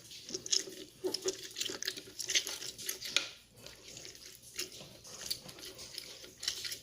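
A lemon half being squeezed by hand, with juice dripping and wet crackling in irregular spurts.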